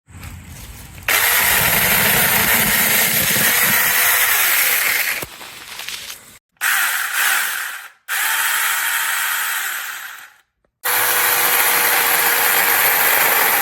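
Battery-powered 8-inch mini chainsaw running in several bursts, each lasting one to a few seconds, switched off sharply with short breaks in between.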